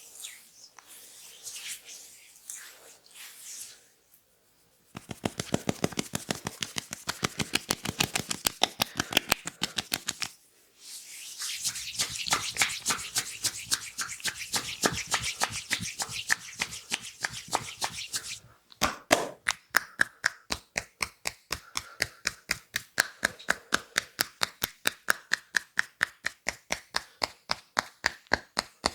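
Soft rubbing of hands over oiled skin, then from about five seconds in a fast, steady run of hand strikes: the rhythmic tapping and chopping of an Indian head and neck massage. The run breaks off briefly twice.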